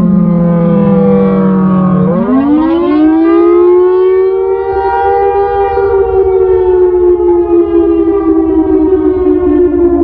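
Siratone EOWS 612 electronic siren, pitched down in editing to imitate a Carter air raid siren, sounding the attack signal. Its low tone sweeps sharply up about two seconds in, then holds and slowly sags in pitch.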